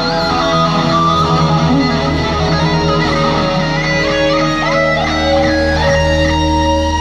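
Live electric guitar solo at a rock concert, with held notes that bend and waver over a steady low drone from the band.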